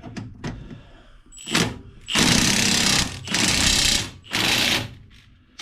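Impact wrench hammering on a steering drag link clamp bolt, one short burst and then three bursts of about a second each; the bolt is on there pretty tight.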